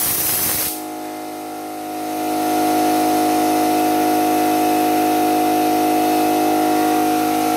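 Brief hiss of an air-fed spray gun spraying bedliner, cut off under a second in, then a motor-driven air compressor running steadily. The compressor gets louder about two seconds in and then holds at that level.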